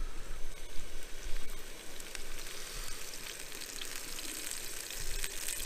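Small sirloin steak searing in a hot frying pan on a Coleman camping gas stove: a steady crackling sizzle.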